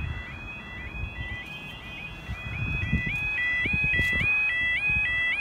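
Level crossing warning alarm sounding: a rapidly repeating rising electronic warble, the 'yodel' alarm that warns road users the barriers are about to come down. It grows louder about halfway through.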